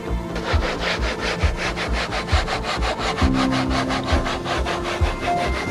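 Background music with a steady beat: a kick drum about twice a second under held chords, joined about half a second in by a fast, scratchy, evenly timed rhythm.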